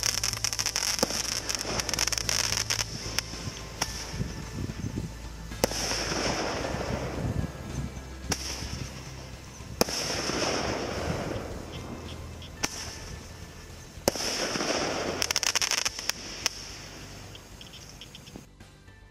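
Firecrackers set off to drive wild elephants back into the forest: a string of sharp bangs and cracks, with a longer hissing burst about every four seconds. It fades over the last few seconds.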